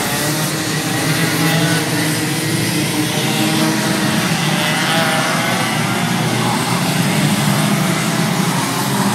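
A pack of 125cc two-stroke racing kart engines running at speed, several engines overlapping with their pitches rising and falling as the karts brake and accelerate through the corners.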